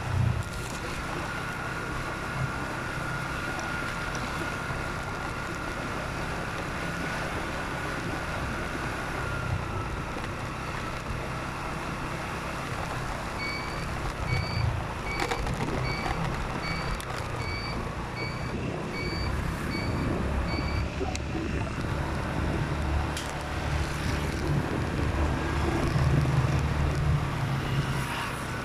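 Steady engine rumble and road noise heard from a moving vehicle. Partway through, a run of about a dozen short electronic beeps, evenly spaced at about two a second, goes on for some seven seconds and then stops.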